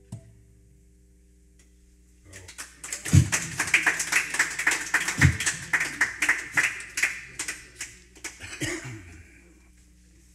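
A small audience applauding after a song, after a lingering acoustic-guitar note fades. The clapping starts about two seconds in, runs for roughly six seconds and thins out near the end.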